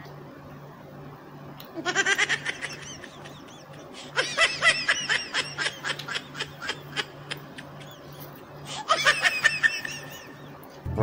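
Bursts of high-pitched laughter: a short one about two seconds in, a longer run from about four to seven seconds, and a last one near nine seconds, over a low pulsing hum.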